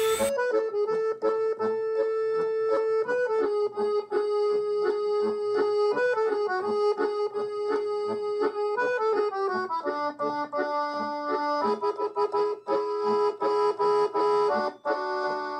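Background music led by an accordion playing a melody in held, stepping notes.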